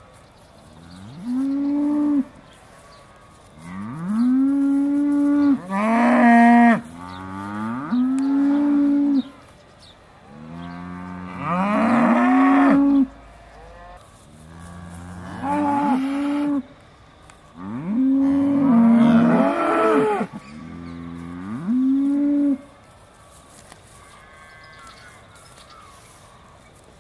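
Aussie Red dairy cows mooing: about eight long, loud calls that each rise and then hold their pitch, some overlapping as more than one cow calls, stopping a few seconds before the end.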